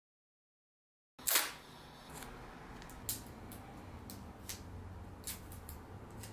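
About a second of dead silence, then a short rasp as a strip of tape is pulled off, followed by faint scattered crinkles and ticks of fingers handling the thin strip of tape over quiet room tone.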